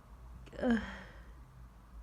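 A person with a cold makes one short, breathy vocal sound about half a second in, falling in pitch, like a sigh or moan between sneezes.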